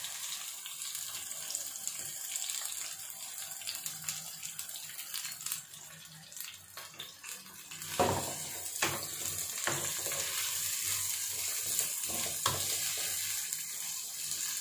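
Chopped onions sizzling in hot oil in a metal karahi, a steady hiss. From about halfway through, a wooden spatula knocks and scrapes against the pan a few times as the onions are stirred to fry them light brown.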